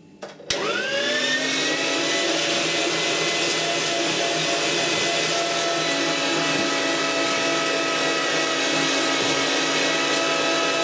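Panasonic electric meat grinder switched on with a click, its motor whining up to speed within about a second, then running steadily as beef mince is pushed through it a second time.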